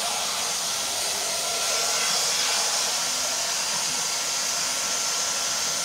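Nikai drum vacuum cleaner running steadily at full suction with its floor nozzle on tiles: an even, rushing hiss with a faint high whine.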